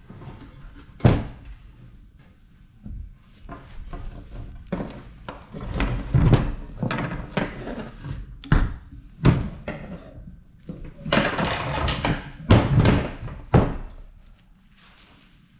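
Scrap metal salvaged from air-conditioner units being handled and dropped, making a series of sharp clanks and thunks with rattling stretches between them. The loudest hits come about a second in and near the end.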